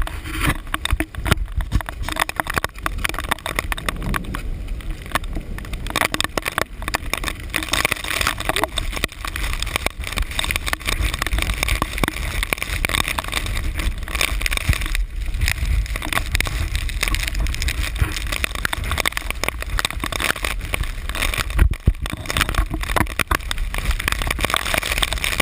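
Muffled handling noise from a handheld GoPro in its waterproof case during a hurried descent: steady low rumble with many irregular knocks and rubs.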